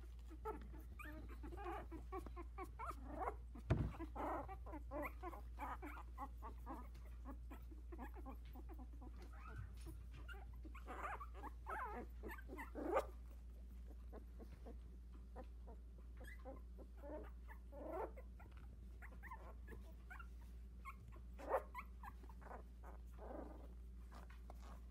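Litter of 16-day-old Havanese puppies whimpering and squeaking in short, scattered calls, with a few louder cries.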